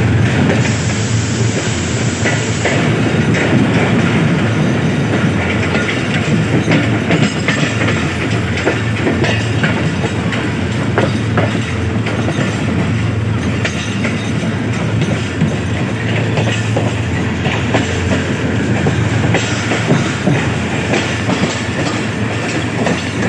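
Bolan Mail passenger train running at speed, heard from aboard: steady rumble of the coach with wheels clattering over rail joints.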